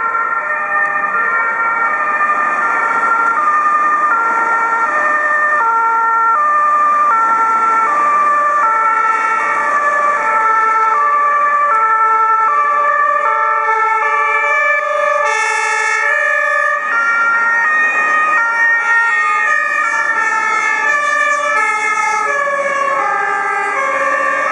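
Two-tone sirens of several German fire engines sounding at once and out of step, each stepping back and forth between a high and a low tone, over the noise of traffic and the trucks' engines as the convoy approaches.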